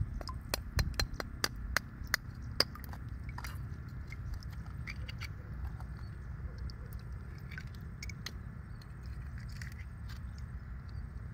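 A bent steel rebar hook clicking and scraping against an oyster shell as the oyster is pried open, with a quick run of sharp clicks in the first few seconds, then fainter, scattered scrapes. A steady low rumble runs underneath.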